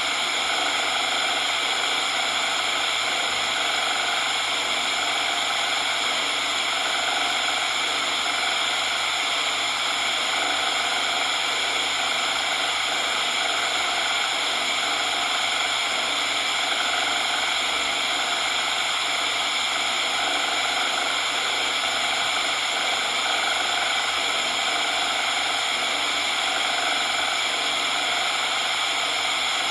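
Steady synthetic coloured noise, an even hiss weighted toward the higher frequencies, running without a break.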